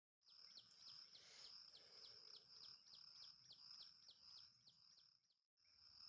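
Faint outdoor birdsong: a short falling chirp repeated about four times a second over a steady high-pitched insect whine. The chirping stops and the sound cuts out briefly near the end.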